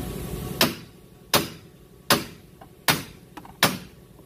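Hand hammer striking the front steering knuckle of the car, working the lower control arm loose: five sharp metal-on-metal blows, evenly spaced about three-quarters of a second apart, each with a short ring.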